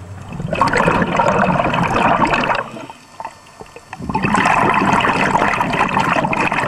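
Bubbling of a scuba regulator's exhaust heard underwater: two bursts of exhaled bubbles about two seconds long each, with a quieter pause for the inhale between them.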